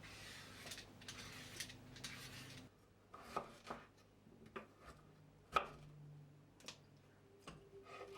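Faint rubbing or scraping for the first two and a half seconds, then a series of light knocks and clicks, the loudest about halfway through. A steady tone begins near the end.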